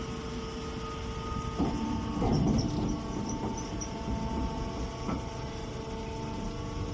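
Grass silage baling machine running: a steady motor hum with a few irregular knocks.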